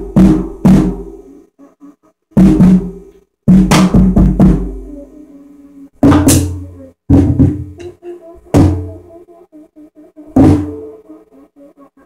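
Drum kit played in short, irregular bursts of hits on the bass drum, snare and toms, with pauses between the bursts. One hit about six seconds in leaves a long, bright, high ring.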